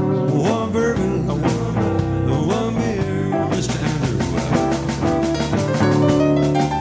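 Blues band playing an instrumental break: a guitar line with bending notes over drums.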